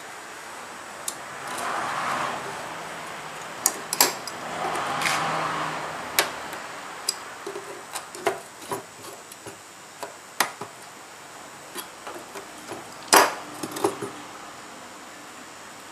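Thin metal strips of a batik stamp block clicking and clinking as they are pressed and fitted into the stamp's frame by hand and with pliers: irregular sharp ticks throughout, the loudest about 13 seconds in. Two brief rushing noises come about two and five seconds in.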